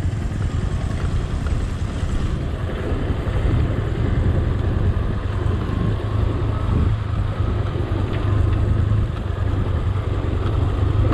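Vehicle on the move, a steady low rumble with wind buffeting the camera microphone, with a faint steady whine coming in about halfway.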